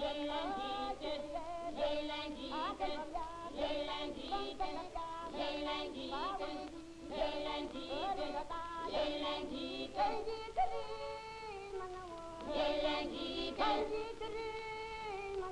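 Background film-score music: a melody of held notes that moves from note to note throughout.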